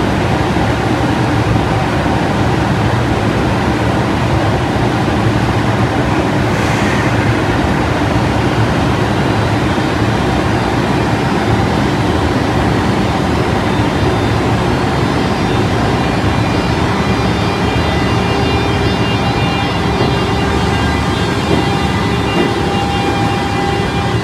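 EF210 electric freight locomotive's cooling blowers running loudly as it pulls away from a standstill. Steady whining tones from its VVVF inverter come in over the blower noise and grow stronger in the second half.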